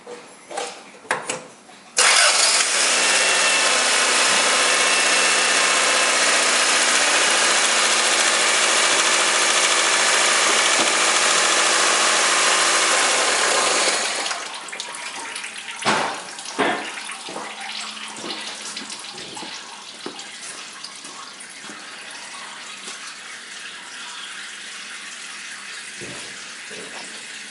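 Car engine starting about two seconds in and running steadily for about twelve seconds, then switched off suddenly. It runs with its oil filter removed, so the oil pump is pumping oil straight out of the open filter mount. A few faint knocks follow.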